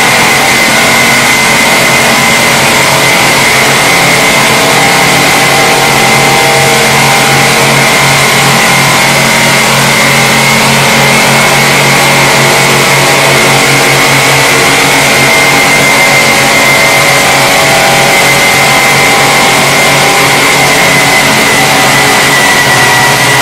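Automatic tank polishing machine with several abrasive discs grinding against a stainless steel tank shell: a loud steady grinding hiss with a high whine held at one pitch, over a low motor hum.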